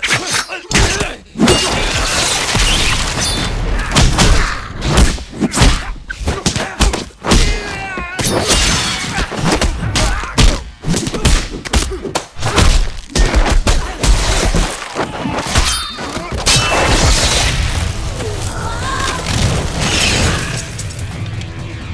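Remade fight sound effects: a rapid run of punch, kick and body-impact thuds, with occasional crashes.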